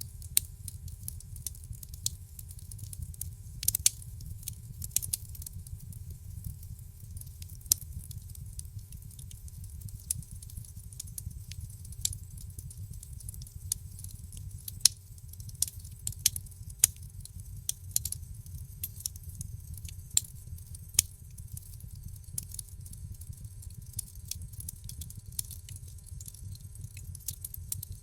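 Burning firewood crackling: a steady low rumble of flame under irregular sharp pops and snaps, some much louder than others.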